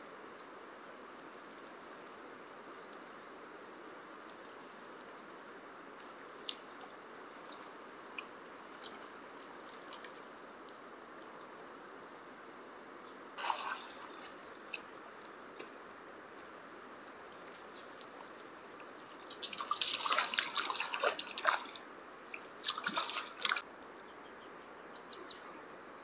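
Steady rush of river water, with scattered drips and a few bursts of splashing close by; the loudest splashing comes about two-thirds of the way through, in two bouts.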